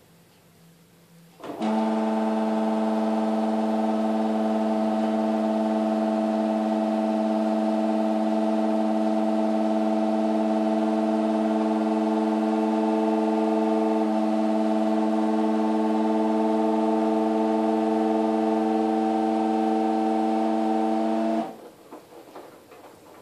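LG F1403RD washer dryer making a really loud, steady droning hum at one fixed pitch. It switches on suddenly about a second and a half in, holds unchanged for about twenty seconds, then cuts off abruptly. The cause is unknown to the owner.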